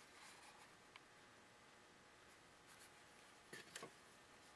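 Near silence: room tone, with a faint click about a second in and a brief faint rustle of handling about three and a half seconds in.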